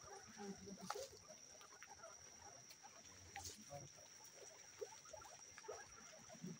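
Faint sounds of a group of guinea pigs feeding on grass: rustling and chewing with many soft, short chirps and chutters, and a few light ticks. A steady faint high whine runs underneath.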